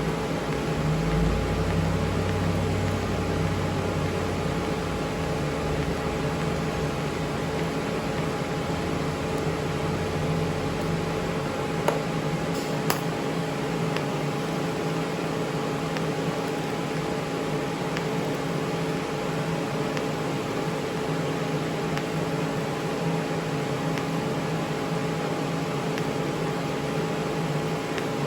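TIG welder running on steel: a steady hum with an even hiss. Faint ticks come about every two seconds in the latter half.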